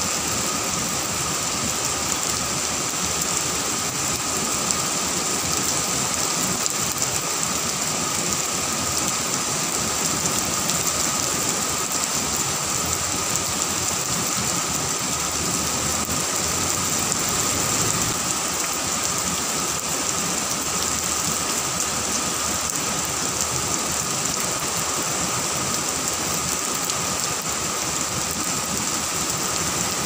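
Heavy rain falling steadily on trees and grass: a dense, even hiss that holds at one level throughout.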